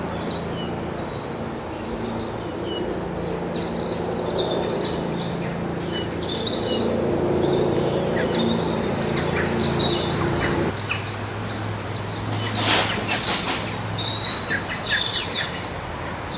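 Songbirds chirping and singing in short, repeated phrases over a steady, high-pitched drone of crickets. A low steady hum sits underneath and drops away about two-thirds of the way through, and there is one sharp click near the end.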